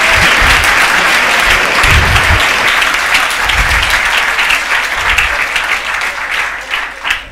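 A large classroom of students clapping in applause, dense and continuous, dying away near the end.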